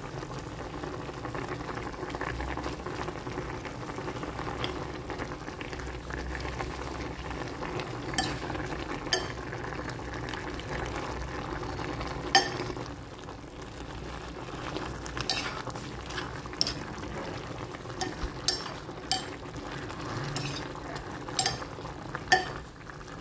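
Chicken and spinach soup boiling in a glass pot with a steady bubbling. From about eight seconds in, a metal spatula stirring the pot knocks against the glass in a string of sharp, irregular clicks.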